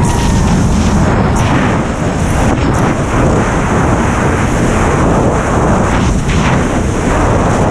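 Steady, loud rush of freefall wind buffeting an action camera's microphone during a tandem skydive.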